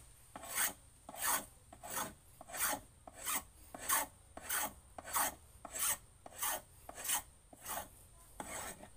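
A hand tool scraping along a wooden paddle handle in steady, even strokes, about three every two seconds, shaving the wood down to shape.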